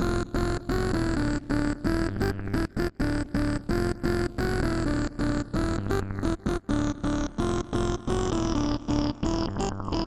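Electro house instrumental: a synthesizer plays a stepping melody over a steady bass, chopped by frequent short rhythmic gaps.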